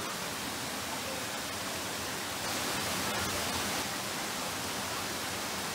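Steady rush of a tall waterfall cascading down rock ledges, a little louder for about a second midway.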